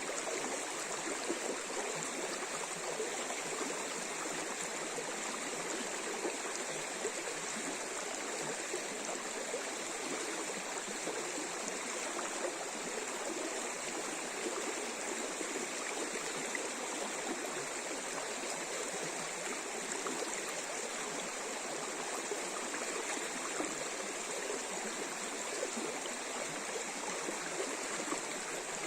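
A river running over shallow riffles: a steady, even rush of water that never pauses.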